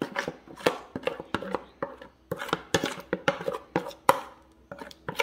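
A kitchen utensil repeatedly knocking and scraping against cookware as thick pamonha batter is spooned into a greased baking pan. The knocks are irregular, about three to four a second, with a light metallic ring.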